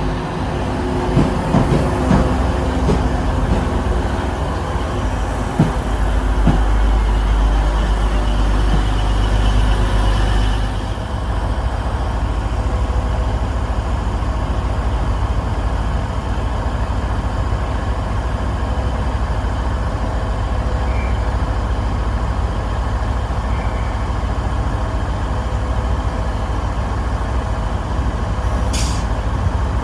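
Train rumbling, with knocks and clatter over the first several seconds and the loudest part up to about eleven seconds in, then a steady low hum. A short, sharp high sound comes near the end.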